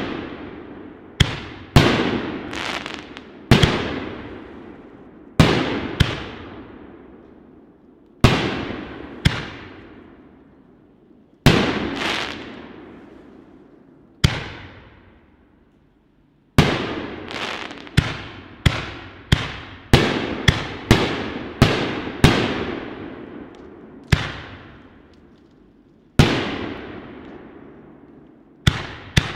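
Consumer canister aerial shells fired in sequence from a fused rack: sharp bangs, each trailing off in a long rolling echo. Past the middle comes a fast run of bangs, several a second.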